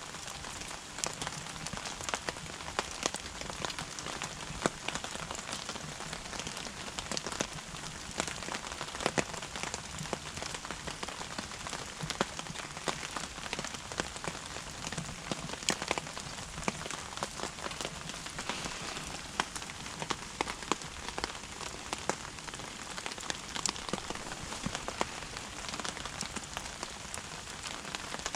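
Wood fire crackling, with irregular sharp pops and snaps over a steady hiss.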